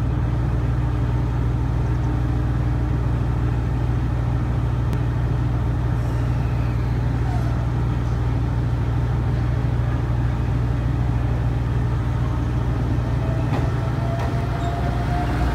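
ET127-series electric multiple unit departing: a steady low hum while it stands, then in the last couple of seconds a rising motor whine as it starts to pull away.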